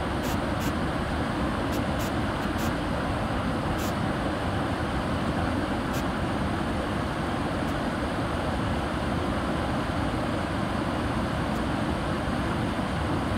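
Steady rushing of rapids on a mountain stream, an even roar of water that holds without change, with a few faint sharp clicks in the first few seconds.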